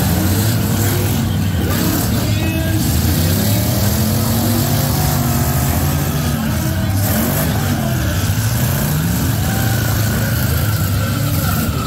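Engines of many demolition derby cars revving hard together, their pitches rising and falling over one another as the cars drive into each other.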